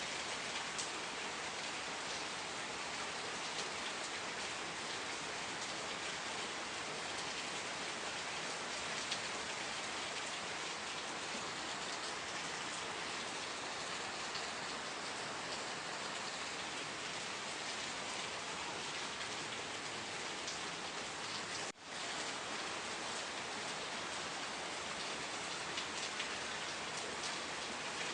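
Steady rain falling, an even hiss of many raindrops. It dips out for an instant about two-thirds of the way through.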